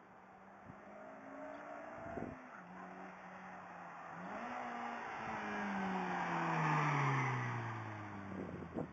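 2009 Honda Civic Si's four-cylinder engine through a Tanabe Concept G axle-back exhaust, as the car accelerates toward and drives past: the exhaust note climbs, grows loudest with tyre and road noise as it goes by, then falls in pitch as it pulls away. A few short knocks near the end.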